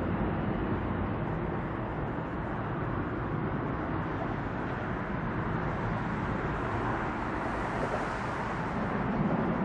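Steady jet noise from a Boeing 747's four turbofan engines as the airliner climbs away after takeoff, heard from the ground.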